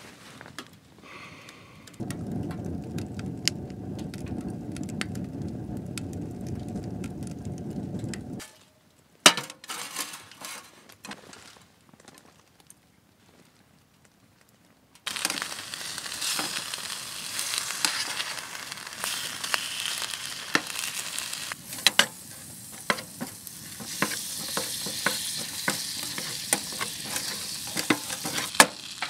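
Food frying in a pan, a steady sizzle with frequent sharp pops, starting about halfway through. Before it come a few seconds of steady low rumble, then a few knocks and clicks and a short near-silent gap.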